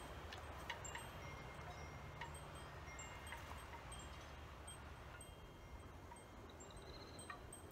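Faint wind chimes tinkling: scattered short, high ringing notes over a low, steady background rumble.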